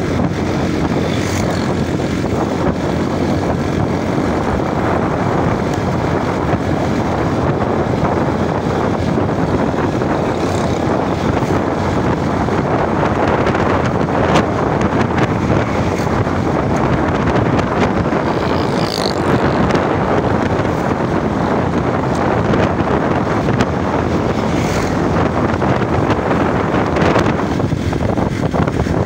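Hazara Express passenger train running at speed: a loud, steady rushing rumble with a few brief clicks.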